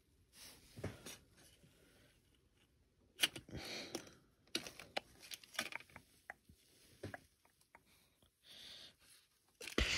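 Faint, scattered handling noises of someone rummaging through things: brief rustles, light clicks and knocks, with quiet gaps between them.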